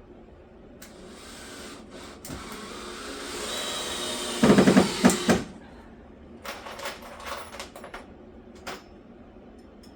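A handheld power tool runs for about four and a half seconds, growing louder, with a loud rapid pulsing for its last second. A few short clicks and knocks follow.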